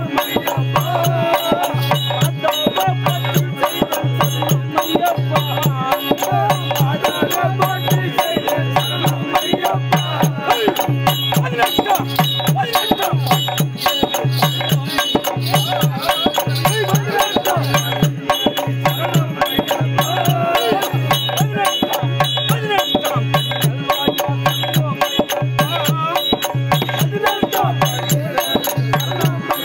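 Folk percussion music: a steady low drum beat about once a second, dense rattling metal strokes, and a wavering melody line above them.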